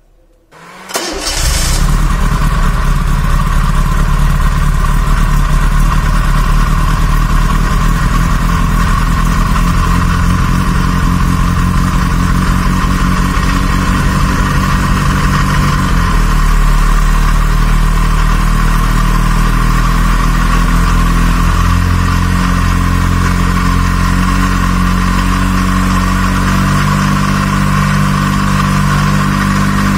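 Gasoline engine on a test stand starting up about a second in, then running steadily at idle; its note changes slightly about halfway through.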